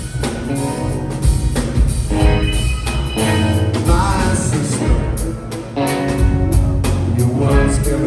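Rock band playing live: drums and a heavy bass line, with guitar and sustained pitched notes over them.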